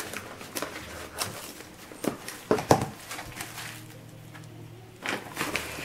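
Scissors snipping and cellophane wrap crinkling as a plastic-wrapped cardboard box is cut open, in scattered sharp clicks and rustles. A denser crinkling starts near the end.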